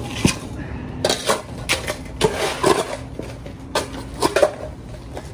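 Two steel shovels digging into broken concrete and wet soil: irregular scrapes and sharp metallic clinks of the blades, about eight or nine strikes.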